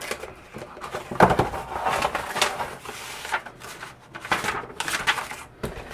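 A paper envelope is handled and opened, and a sheet of paper is pulled out and shuffled: a run of irregular paper rustles and scrapes, the loudest about a second in.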